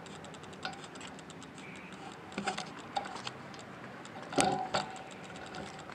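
Bicycle freewheel ticking fast and evenly while coasting, the clicks thinning out as it slows. A few sharp knocks follow, then a louder clunk with a brief metallic ring about four and a half seconds in.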